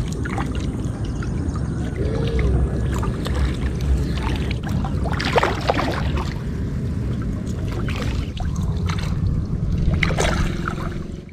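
Swamp water splashing and sloshing as a bamboo lift net and scoop net are worked through it, over a steady low rumble. The splashes come in irregular bursts and are loudest about halfway through and again near the end.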